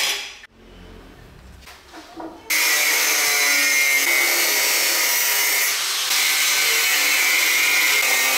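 Angle grinder with a thin cut-off disc cutting through square steel tubing. It starts abruptly about two and a half seconds in and then runs steadily and loudly, after a short sharp tap at the very start.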